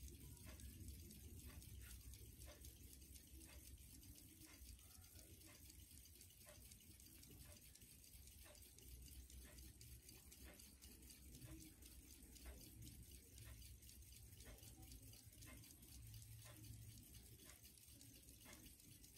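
Faint, steady ticking of a 1962 Westclox St. Regis dollar pocket watch's pin-pallet movement: an even run of small, regular clicks.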